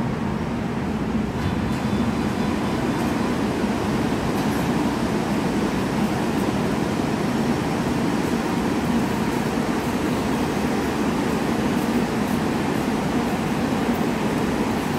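AREX commuter train standing at an underground platform, with the steady hum of the train's equipment and the station ventilation.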